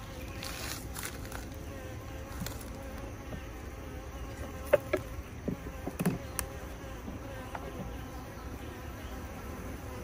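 Honey bees buzzing steadily around an open hive, with a few sharp clicks and knocks about halfway through as a metal hive tool pries a wooden frame loose.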